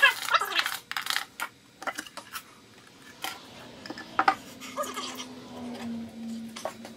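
Ratcheting screwdriver clicking rapidly as a screw is driven near the start, then scattered knocks and clinks as the screwdriver is set down on a wooden workbench and the melamine jig parts are handled. A low steady hum comes in about two-thirds of the way through.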